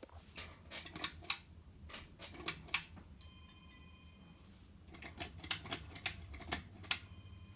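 Old Westinghouse ceiling fan running with a steady low hum, while irregular sharp clicks and rattles, like chain or handling noise, sound over it.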